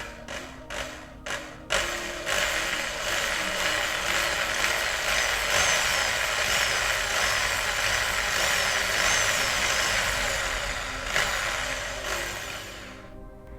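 A few sharp clicks, then a small power drill running steadily for about eleven seconds, drilling out a rivet on a Dinky Toys diecast model to take it apart; it dies away near the end.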